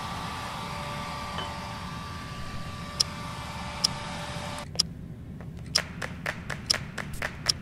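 A steady hum and hiss with faint held tones, broken by two sharp high clinks. It cuts off suddenly, and a clock-like ticking beat starts, about two ticks a second, as the opening of a music track.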